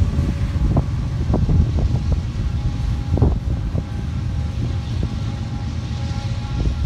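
Freight cars of a manifest train rolling past: a steady low rumble of steel wheels on rail, broken by a few sharp clunks, the loudest about three seconds in.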